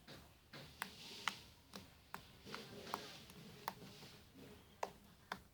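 Slime being squished and pulled by hand, giving sharp little popping clicks, about two a second and unevenly spaced, over a soft sticky hiss.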